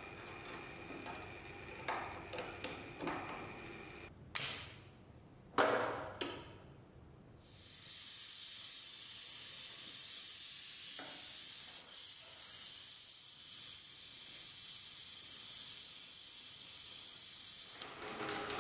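A few knocks and clicks, then a gas torch flame hissing steadily for about ten seconds before it cuts off near the end. The flame is heating the steel head of a socket cap screw to red heat so a Torx socket can be hot-formed in it.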